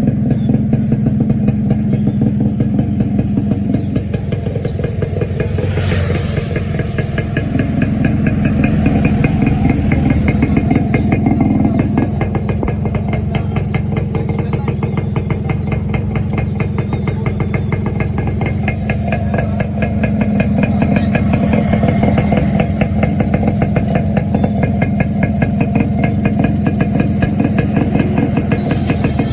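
Yamaha motorcycle engine running steadily near idle for a sound check after repair, swelling a little in revs twice.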